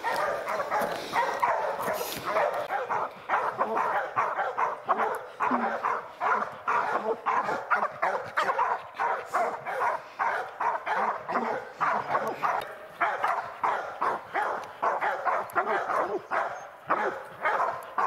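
A pack of bear hounds barking at a black bear treed above them: the steady bawl at the tree that tells the hunters the bear is treed. The barks overlap, several a second, with no pause.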